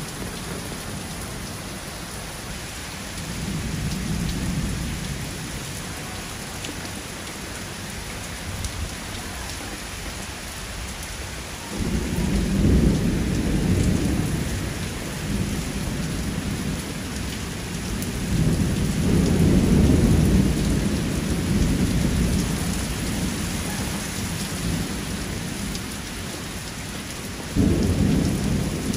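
Heavy rain pouring steadily, with thunder rumbling several times over it. There is a low rumble a few seconds in, then a sudden loud peal about twelve seconds in that rolls on for a few seconds. A long rumble follows around twenty seconds in, and another sudden peal comes near the end.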